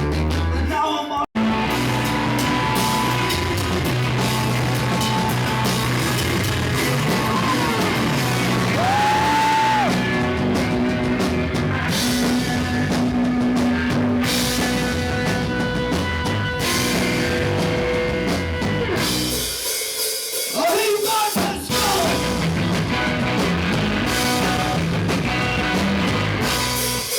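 Rock band playing live and loud, a drum kit driving it with singing over the top, picked up by a camcorder's built-in microphone. The sound cuts out for an instant about a second in, and the band thins out briefly near the two-thirds mark.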